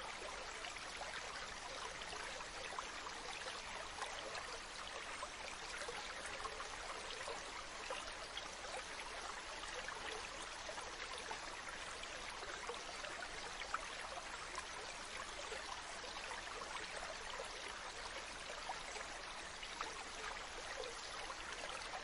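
Running stream water: a steady splashing rush dotted with small droplet ticks.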